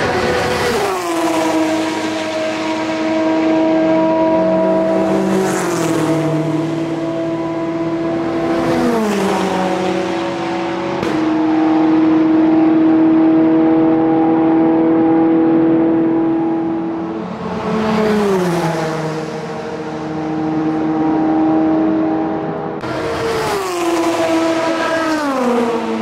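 Endurance race cars at full throttle passing one after another, each engine note falling in pitch as the car goes by, about five times. The loudest stretch is a sustained high note in the middle.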